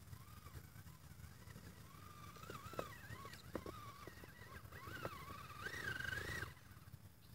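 Electric drive motor and gears of a radio-controlled rock buggy whining as it crawls over rocks, the pitch rising and falling with the throttle, with scattered clicks of tyres and chassis on stone. The whine is loudest and climbs near the end, then cuts off suddenly.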